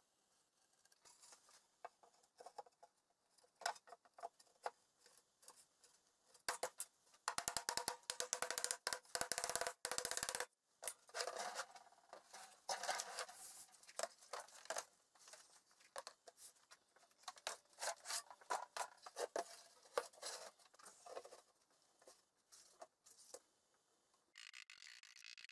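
Scrapes, knocks and taps from handling and fitting chipboard furniture panels together, with glue being spread along a panel edge; a dense run of quick clicks and knocks comes about seven to ten seconds in.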